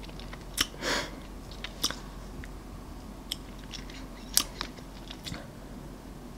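Bites into a chocolate-coated Helados Mexico banana ice-cream bar: a few short, sharp cracks of the crisp chocolate shell, with chewing and a softer, wetter bite about a second in.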